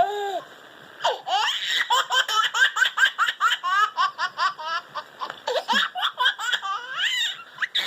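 Baby laughing: after a brief laugh at the start and a short pause, a long run of quick laughs, about four a second, from about a second in until near the end.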